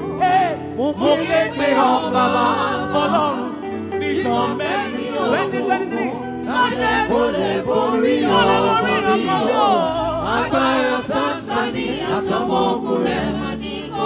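Gospel singing: several voices with wavering melodic runs over sustained instrumental chords.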